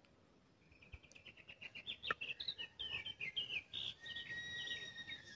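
A bird singing: a rapid run of short, high chirps that grows louder, then one long steady whistled note over the last second and a half.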